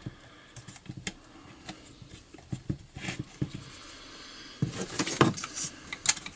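Small clicks and taps of hands handling a trimmer's carburetor throttle cable and small parts on a workbench, with a louder clatter about five seconds in.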